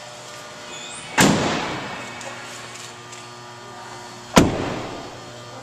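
Two loud slams about three seconds apart, each dying away over a moment: the doors of a 2008 Ford F-150 crew-cab pickup being shut, the second as the cab is entered.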